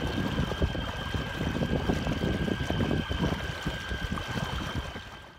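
Torqeedo Travel 401 electric outboard running at speed with a steady high whine, over the wash of its propeller in the water and wind buffeting the microphone. The sound fades out near the end.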